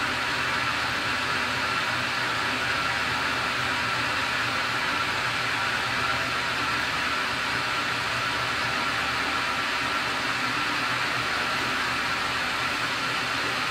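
Tormach 15L slant-bed CNC lathe running steadily, a constant mechanical hum and hiss with a faint high tone held throughout.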